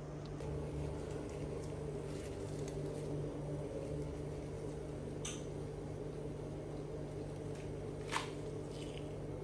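Steady low mechanical hum, with a few faint clicks and one sharper click about eight seconds in.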